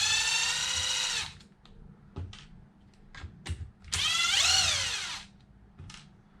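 Electric screwdriver fitted with a hex driver bit, run in two short bursts to drive screws. The motor whines, and in the second burst it speeds up and then winds down. Small clicks of parts being handled come in between.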